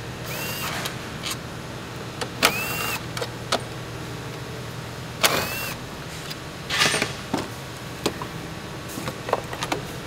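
Cordless electric ratchet run in three short bursts, each a whine that rises and then holds level, loosening the 10 mm fasteners on the battery. Light clicks and a brief rattle of metal parts follow.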